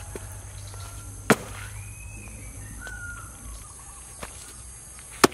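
Machete blade chopping into a rotting stump: a sharp chop about a second in and a louder one near the end, with a lighter knock between. Faint bird calls whistle in the pauses.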